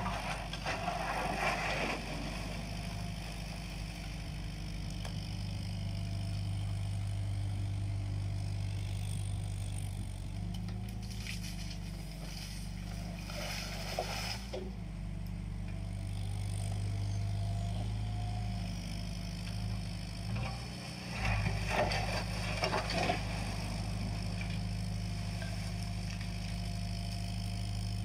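JCB 8050 mini excavator at work: a diesel engine running steadily, with several bursts of scraping and clatter as the bucket digs soil and tips it into a tipping trailer.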